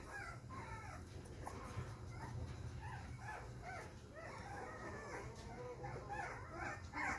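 Three-week-old XL American Bully puppy whimpering and squealing in a string of short, high cries that bend up and down, two or three a second, as she struggles against being handled.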